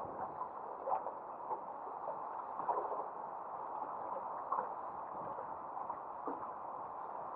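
Water lapping and gurgling against the side of a small boat: a steady wash with irregular small splashes and knocks.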